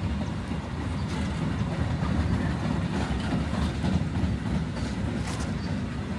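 Freight train rolling past: a steady low rumble with a few sharp clicks scattered through it.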